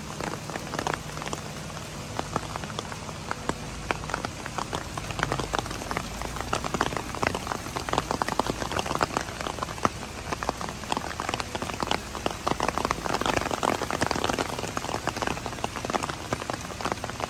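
Rain falling steadily, with many individual drops ticking close by; it gets a little heavier past the halfway point.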